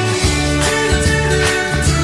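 Background music with a steady beat and held bass notes.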